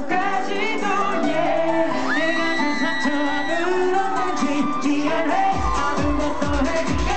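Live K-pop performance: sung vocals over a pop backing, with a held high note in the middle, and a kick-drum beat coming in about five and a half seconds in, about two beats a second.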